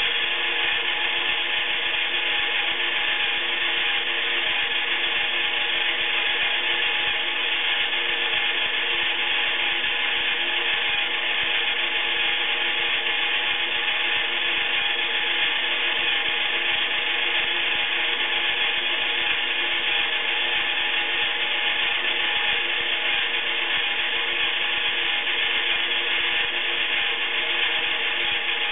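Battery-powered Iriza toy washing machine running a wash: its small electric motor whirs steadily as the plastic drum turns the wet laundry.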